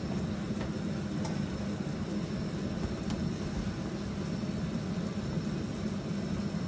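Steady low rushing noise at a gas stove while a cream sauce simmers in a stainless frying pan, with a couple of faint ticks.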